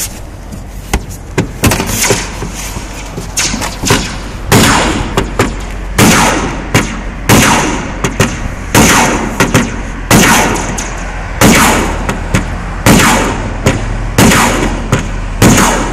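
Hammer blows on sheet metal in a steady rhythm: lighter hits at first, then a heavy strike about every second and a half with lighter taps between, each ringing briefly.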